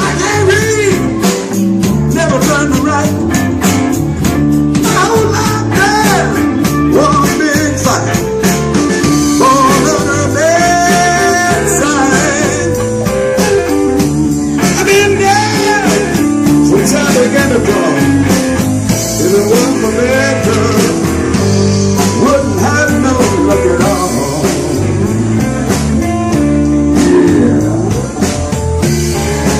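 Band playing blues-rock, with electric guitar lines bending over a steady bass and drum beat.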